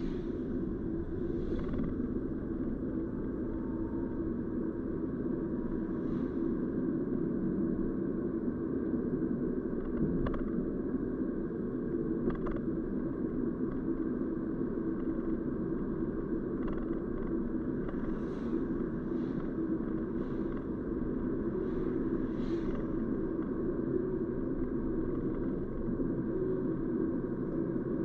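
Steady road and engine noise of a car being driven, an even low rumble, with a few faint clicks and light knocks along the way.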